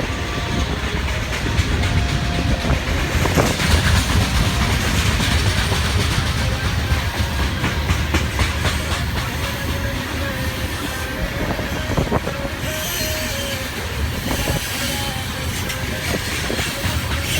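Freight train cars rolling past, wheels clacking over the rails, with a faint thin squeal of wheels on rail.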